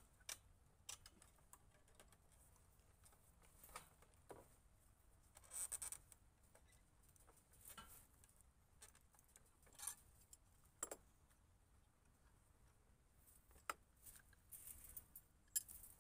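Faint, scattered clicks and scrapes of pliers twisting wire to fasten a wooden pallet to a chain-link fence, with a brief louder scrape about six seconds in.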